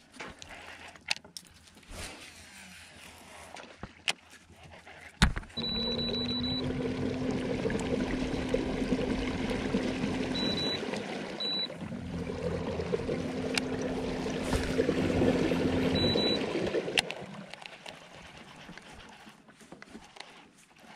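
A few knocks, then a small boat motor starts about five seconds in and runs steadily with a hum and water churning, stops briefly, runs again and cuts off after about eleven seconds.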